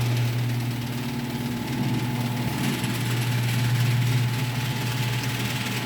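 Genie Screw Drive garage door opener, model 2060L, running: its motor hums steadily as it drives the door along the screw rail.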